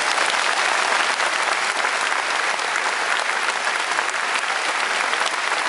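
Concert audience applauding, a steady, dense clapping that greets a performer just introduced on stage.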